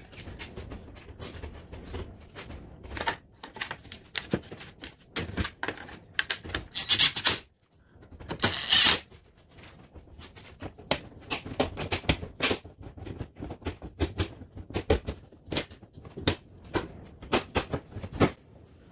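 Hands working plastic trim and parts into place: irregular clicks, taps and plastic rattles, with two louder scraping rustles near the middle.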